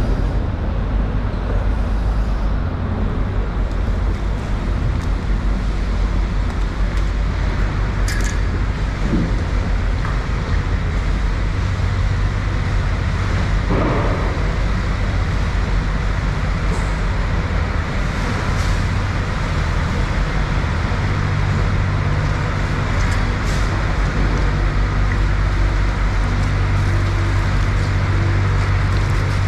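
A steady low engine-like hum under a constant noisy background, growing stronger about two-thirds of the way through, with a few faint knocks.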